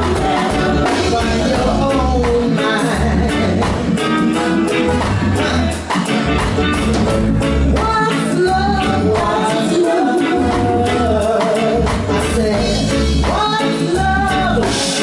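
Live band music: women's lead and backing vocals singing a melody over electric bass and drums, with a steady, pulsing low end.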